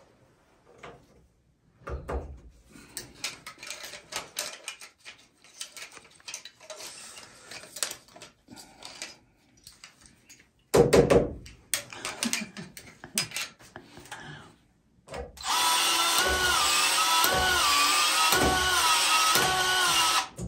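Cordless PEX expansion tool running for about five seconds near the end, its motor whining with a pitch that rises and falls in a regular cycle as the head flares the end of a PEX pipe for a fitting. Before that come scattered handling clicks and knocks, the loudest a single knock about eleven seconds in.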